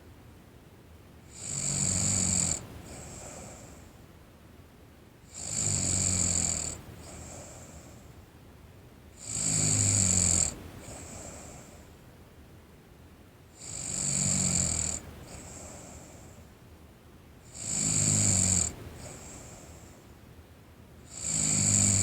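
A teenage girl snoring in her sleep, a loud snore about every four seconds, six in all, each followed by a softer breath.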